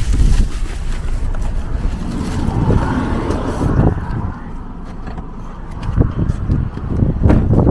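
Rustling and low rumbling from a handheld phone being moved about as a person climbs out of a car, with a few knocks and clicks near the end.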